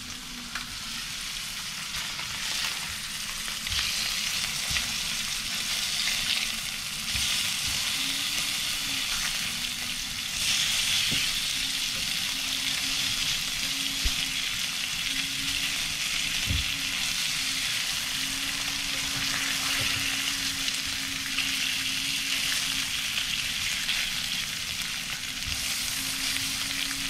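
Seasoned fish fillets frying in oil in a stainless steel pan: a steady sizzle that swells and eases, with occasional light knocks and scrapes as a slotted spatula turns them. A steady low hum runs underneath.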